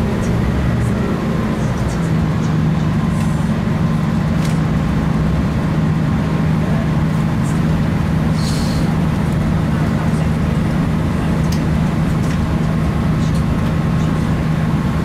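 Great Western Railway Class 165 diesel multiple unit heard from inside the carriage while running at a steady speed: a steady low drone from the diesel engine under a constant rumble of wheels on track, with a few light clicks.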